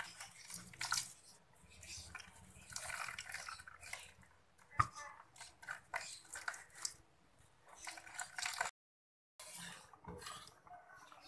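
Coconut milk being squeezed by hand through a plastic strainer, pouring and dripping into a wok in irregular splashy bursts, with a sharp click about five seconds in. After a short gap near nine seconds, softer liquid sounds come from the simmering fish-head gulai.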